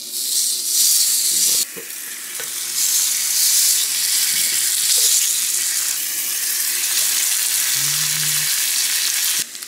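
Bacon strips sizzling in a hot cast-iron pan as they are laid in one by one; a steady high hiss that cuts off suddenly near the end.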